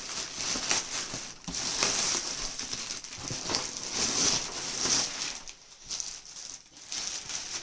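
Plastic parcel packaging being handled and crinkled, an irregular run of rustles and crackles that thins out near the end.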